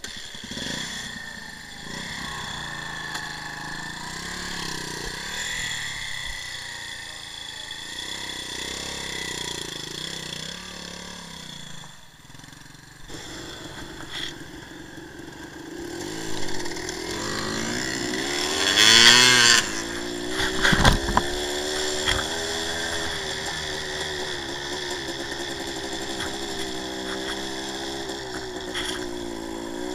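The 1984 Suzuki TS185's two-stroke single-cylinder engine running at low, uneven revs, then revving up sharply about two-thirds of the way in and holding a steady pitch as the bike rides on. A couple of sharp knocks come just after the rev.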